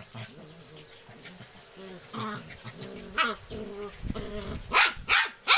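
Two dogs play-fighting: low, wavering play growls, then three short, loud yelps or barks in quick succession near the end.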